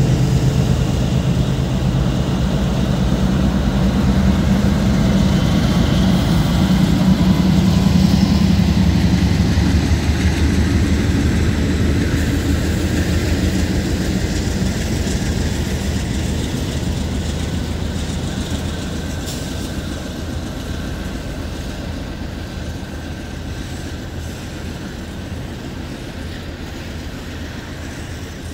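Diesel locomotives leading a Union Pacific double-stack freight train, their engines loudest about eight seconds in and then fading, leaving the steady rumble of the cars rolling by.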